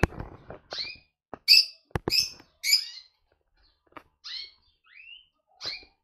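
Small aviary birds giving short chirping calls, each dropping quickly in pitch, about one every half-second to second, with a couple of higher rising notes near the end. A few sharp clicks and knocks come in as well, one right at the start and one about two seconds in.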